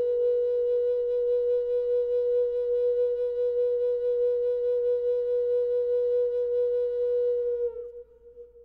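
Background music: a flute holding one long, steady note that fades away near the end.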